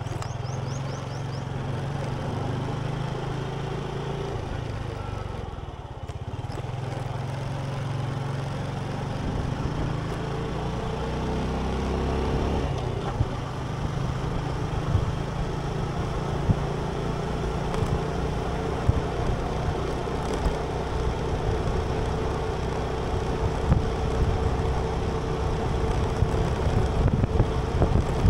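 Road vehicle engine running on the move. Its pitch rises as it speeds up from about nine to twelve seconds in, then it holds steady, with wind buffeting the microphone in the second half.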